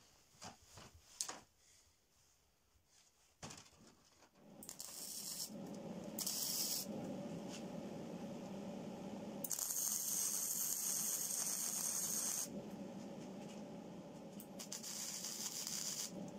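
Electric arc welding on steel scrollwork: a steady crackling sizzle that starts about four seconds in and runs on, its high hiss cutting in and out several times as the arc is struck and broken. Before it, a few light metallic clicks and taps as the pieces are set.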